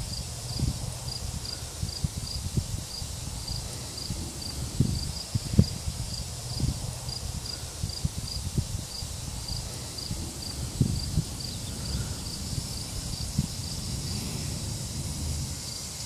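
A cricket chirping steadily, about two or three high chirps a second, fading out about three-quarters of the way through, over irregular low thumps and rumbles.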